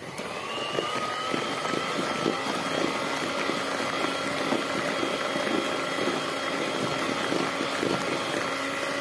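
Electric hand mixer starting up, its motor whine rising at the start and then running steadily as the twin beaters churn thin liquid cake batter of eggs, sugar, oil and milk.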